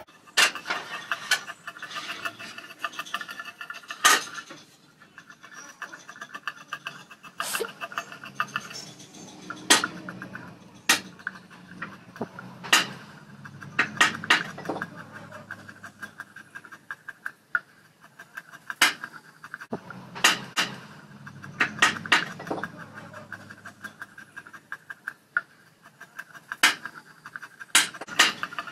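Hand-held blade shaving wood from a cricket bat handle clamped in a vise: repeated scraping strokes with sharp knocks every second or two.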